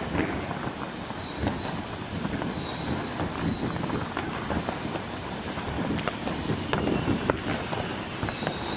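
Ground fountain firework spraying sparks: a steady hissing rush full of sharp crackles, with faint short high whistles falling in pitch every second or so.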